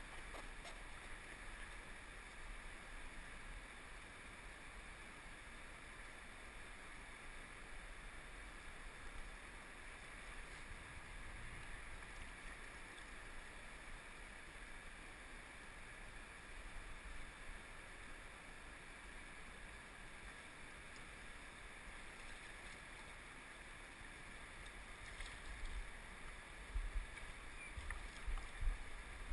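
Steady, faint rush of a wide river flowing past, with gusts of wind buffeting the microphone in low bumps near the end.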